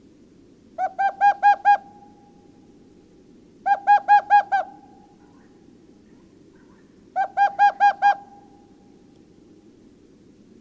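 An animal calling: three bursts of five or six quick pitched notes, each burst about a second long and a few seconds apart, over a steady low background noise.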